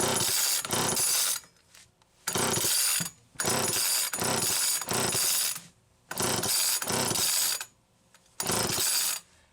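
Homelite XL-2 chainsaw's recoil starter cranked by its pull rope, about five pulls with short pauses between them, and the engine never fires. The saw won't run because its burnt-through spark plug wire is arcing to the muffler instead of firing the plug.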